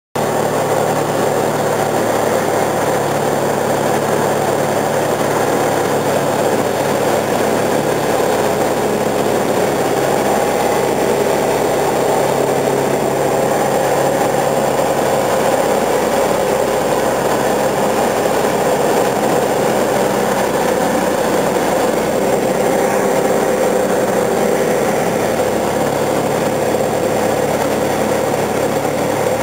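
Single-engine light aircraft's engine and propeller heard from inside the cockpit: a loud, steady drone.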